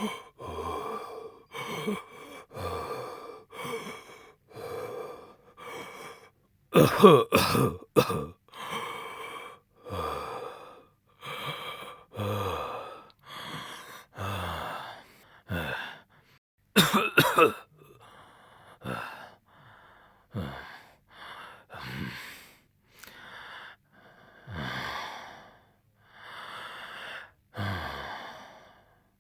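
An asthma patient's wheezy, laboured breathing: a long run of short, noisy breaths about one a second. Louder coughing bursts come about seven and seventeen seconds in, and the breaths grow fainter and slower toward the end.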